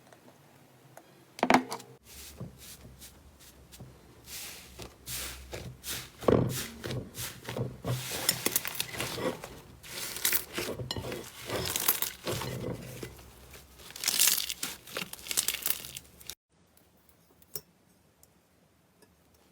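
Slime being squeezed and pressed by hand, giving dense, irregular crackles and pops, with a sharp pop about a second and a half in. It cuts off suddenly about three seconds before the end, leaving faint room tone with a few light ticks.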